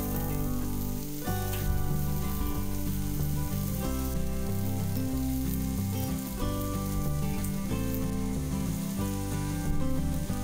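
Sliced mushrooms and onion sizzling steadily as they fry in oil in a frying pan, under background music with held notes.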